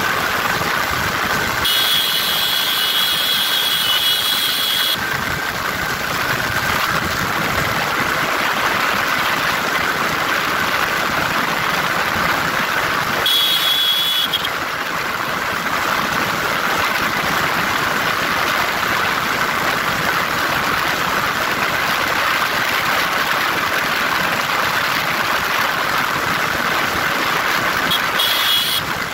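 Yamaha R15 V3's 155 cc single-cylinder engine running flat out near its top speed, around 134 to 142 km/h, under a steady loud rush of wind on the microphone.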